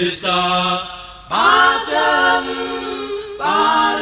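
Male vocal group singing a Sesotho hymn a cappella, in sung phrases with short breaks between lines.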